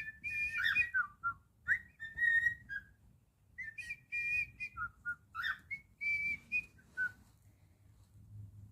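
Cockatiel whistling a learned tune in short phrases of held notes and quick slides, pausing between phrases and stopping about seven seconds in.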